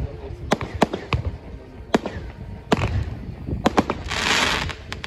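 Comet Speed Range 29-shot fireworks battery (cake) firing: a string of sharp bangs at irregular intervals, some in quick pairs. About four seconds in, a short hissing spray sounds as a glittering burst opens.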